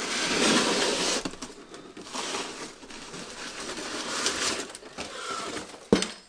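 Cardboard shipping box being handled and torn open: irregular rustling, scraping and tearing of cardboard, loudest at the start, with a sharp knock a little before the end.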